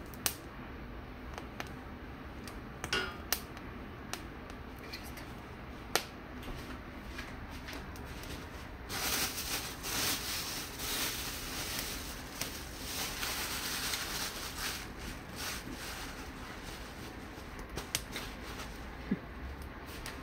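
Scattered sharp clicks and taps of metal tongs on the grate of a gas stove as poblano peppers are turned over the open flame, over a steady low hiss. From about nine to sixteen seconds in, a louder, rougher hiss full of rapid crackles.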